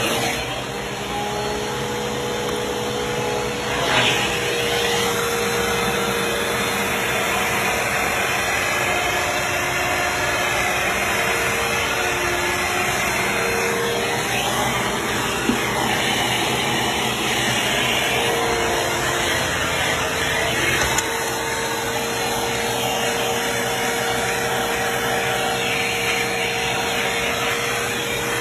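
Bissell PowerForce Helix Turbo upright vacuum cleaner running steadily on carpet, its motor tone shifting slightly in pitch as the load changes, with a few brief knocks.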